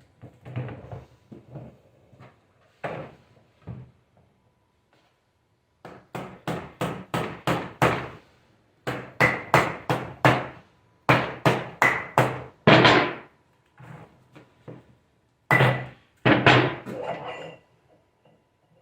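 Hammer blows on metal in several quick runs of about three strikes a second, with a faint metallic ring.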